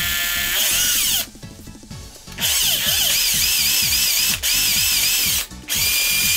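Electric drill with a 7 mm bit running in reverse against a 3D-printed plastic socket, in three bursts with a whine that wavers in pitch. It is opening up the too-tight friction-fit hole so the DC input jack sits a little looser.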